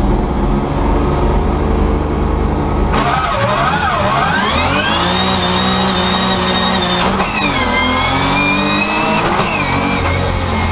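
Race car's engine heard from inside the cabin, holding steady revs on the start line, then about three seconds in it launches at full throttle. The pitch climbs and holds, then drops and climbs again twice as it shifts up through the gears.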